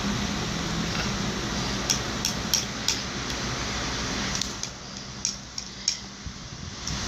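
Metal fork clicking against a ceramic plate of noodles: a few light, irregular clicks around two to three seconds in and again between four and six seconds, over a steady hum.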